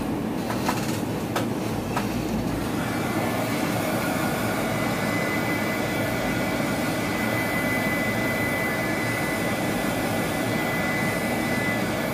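Handheld craft heat gun running, blowing hot air to dry a fresh coat of gold paint on a small wooden plaque. A steady high whine comes in about three seconds in and cuts off near the end, after a few light clicks at the start.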